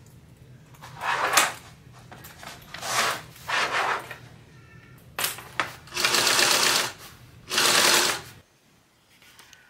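Sewing machine stitching a seam through vinyl and canvas bag panels in six short bursts, each under a second, stopping and starting between them.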